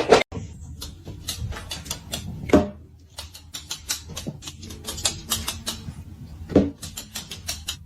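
Rapid, irregular clicking and tapping, several clicks a second, with two louder knocks, one about two and a half seconds in and one near six and a half seconds.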